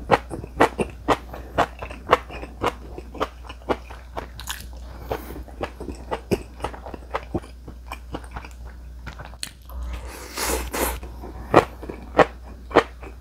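Close-miked crunchy chewing of crisp seasoned vegetables (namul such as balloon flower root and mung bean sprouts), with sharp crunches about twice a second. A brief rush of breathy noise comes about ten seconds in, then the crunches grow louder again near the end.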